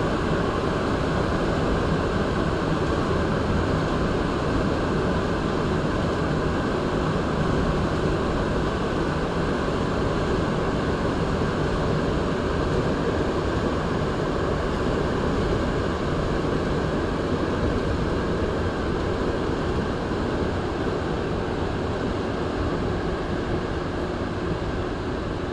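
Montreal Metro MR-73 rubber-tyred train running at speed through a tunnel, heard from inside the car: a steady running noise that eases slightly near the end.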